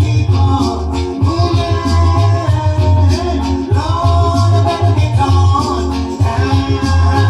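Reggae song playing: a heavy bass line, guitar and shaker percussion, with a sung vocal line.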